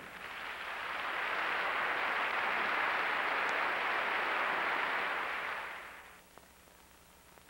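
A steady, even hiss that swells in over the first second, holds, and fades away about six seconds in, followed by a few faint clicks.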